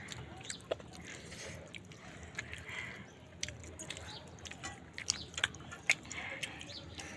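Close-up eating sounds of a person chewing chicken and dal curry: many short, wet smacking clicks and soft squelches, irregular, with a few sharper clicks about five to six seconds in.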